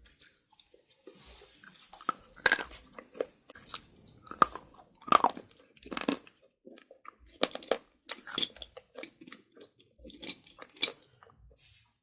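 Close-miked chewing of slate pencil: brittle slate crunching and crackling between the teeth in irregular bites, a few louder crunches among smaller crackles.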